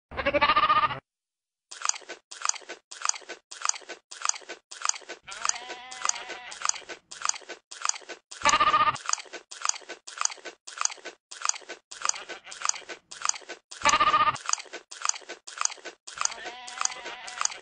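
Goat chewing with a steady crunch, about three bites a second, and bleating loudly three times: once at the start, once about halfway through and once more later on.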